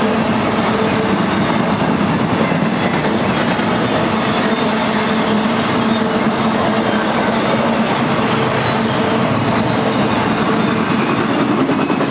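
Intermodal freight train of well cars loaded with trailers and double-stacked containers rolling steadily past close by: continuous wheel-on-rail rumble and rattle of the cars, with a steady low drone underneath.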